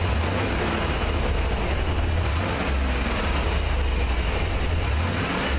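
The 5.7-litre V8 of a 1994 Chevy G30 van running at a steady idle, heard from inside the van: a deep, even low rumble.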